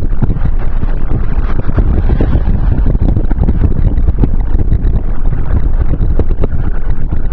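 Floodwater rushing in a creek over its banks, a loud, steady low rumble, mixed with wind buffeting the microphone.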